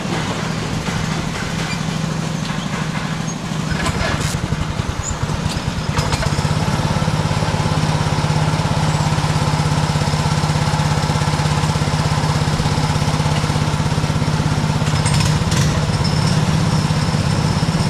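Go-kart engine running as a steady drone, getting louder about six seconds in and then holding an even pitch.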